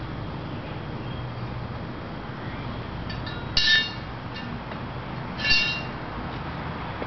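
Steady low hum and hiss, with two short, bright ringing sounds about two seconds apart.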